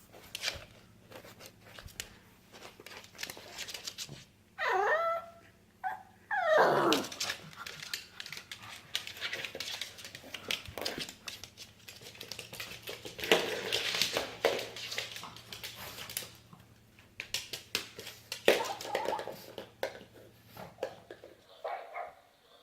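Pug whining and making a run of short noisy dog sounds: two loud whines that fall in pitch come a few seconds in, and short sputtering noises follow.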